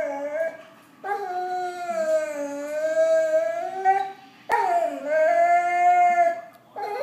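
Black Labrador retriever 'talking' for food: long, drawn-out howling vocalisations that slide up and down in pitch while it begs. Two long calls of about three and two seconds follow a short one, with a brief start of another near the end.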